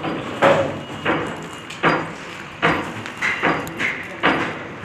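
Hammer blows struck repeatedly, roughly one or two a second, each a sharp knock with a short ring-out.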